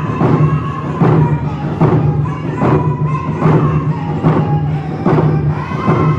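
Round dance song: hand drums struck together in a steady beat, about five strokes every four seconds, with a group of voices singing over them.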